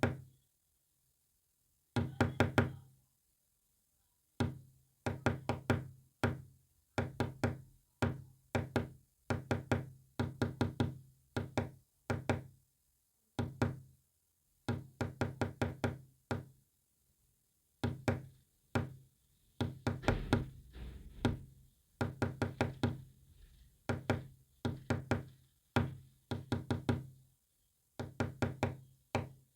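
Knocks tapping out a Morse code message: clusters of quick, sharp raps separated by short pauses, each rap with a brief pitched ring.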